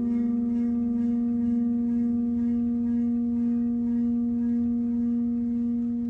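Large round metal basin rubbed at its rim so it sings like a singing bowl: one steady hum with fainter overtones, pulsing slightly. Its vibration raises the star-shaped standing-wave pattern on the surface.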